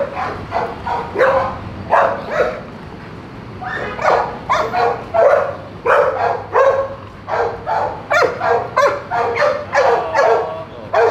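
Pit bulls barking repeatedly in short, sharp barks, with a brief lull about three seconds in and quicker barking after. They are barking at a person coming into their area.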